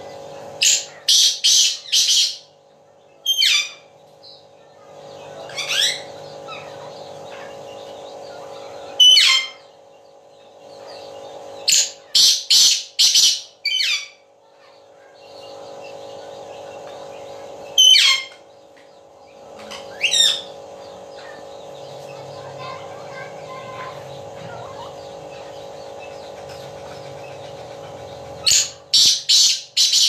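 Black francolin (kala teetar) calling from its cage: loud, sharp high notes in quick runs of four or five, repeated three times, with single notes in between. A steady low hum comes and goes behind the calls.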